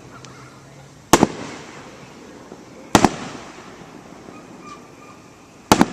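Aerial fireworks shells bursting overhead: three sharp booms, about a second in, at three seconds and near the end, each a quick double crack with an echoing tail.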